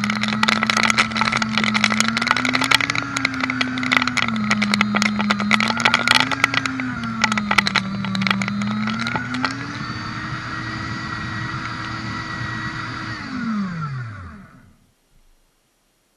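Shredder's electric motor running under load, its hum sagging and recovering while the cutters crunch through cardboard with rapid crackling snaps. After about ten seconds the crunching stops and the motor runs freely at a steady, slightly higher pitch, then it is switched off and winds down, its pitch falling until it stops near the end.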